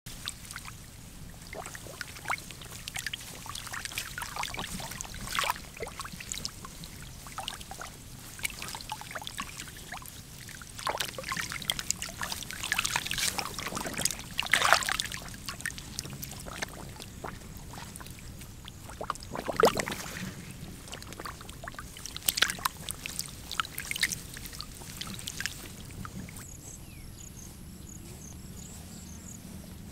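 Shallow water splashing and sloshing in irregular bursts, with two louder splashes about midway; the splashing stops a few seconds before the end, leaving a faint steady hiss.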